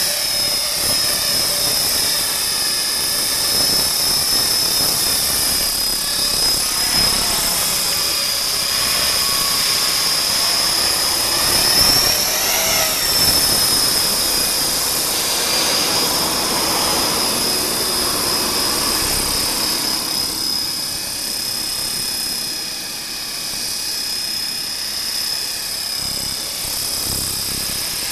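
Align T-REX 450 V2 electric RC helicopter with a five-blade main rotor and four-blade tail rotor in flight: a steady high whine from the motor and gears over the rotor noise. The whine briefly rises in pitch and loudness about halfway through.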